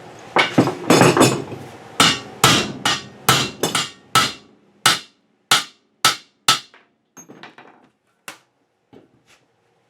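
Hammer blows tapping a part home into a Honda ATC250R swingarm: a run of sharp metallic strikes about twice a second, then a few lighter, sparser taps as the part seats.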